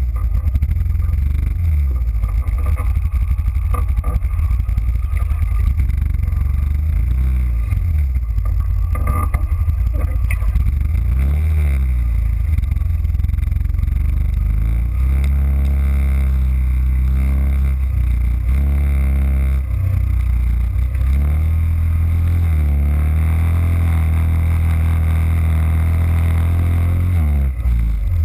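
Yamaha Kodiak ATV's single-cylinder engine running under load through deep muddy water, its revs rising and falling several times.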